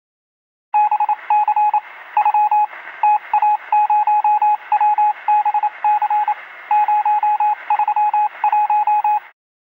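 Electronic beep sound effect: a single-pitched tone keyed on and off in quick short and long pieces over radio-like static, in the manner of Morse code. It starts just under a second in and cuts off near the end.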